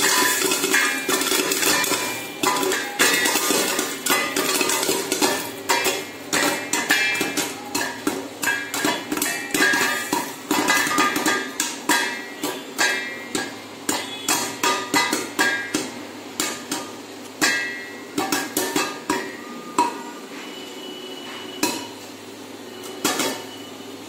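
Popcorn kernels popping in a covered kadai with a steel lid over a high gas flame: rapid pops at first, thinning to a few scattered pops near the end, with a steady hum underneath. The dwindling pops are the sign that the batch is nearly fully popped.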